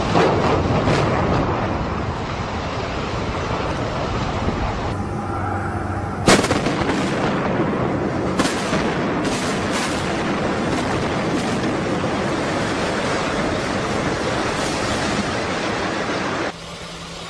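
Explosive demolition of high-rise buildings: a long noisy rumble of collapsing structure, with a single sharp blast about six seconds in and a quick run of sharp cracks from detonating charges soon after. The sound drops suddenly near the end.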